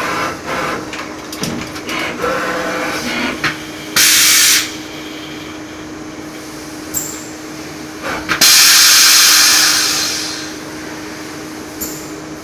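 CNC lathe running with a steady hum and some light machining noise, broken by two sudden loud hisses: a short one about four seconds in, and a longer one after a click about eight seconds in that fades away over a second or two.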